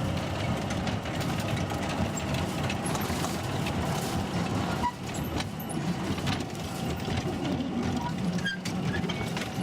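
Small open trolley train on a narrow-gauge forest railway running along its track, a steady rumble with many small clicks and rattles from the wheels and cars.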